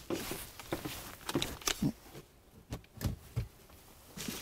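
Scattered clicks, knocks and rustles of an extension cord and its plug being handled, with a few dull thuds in the middle.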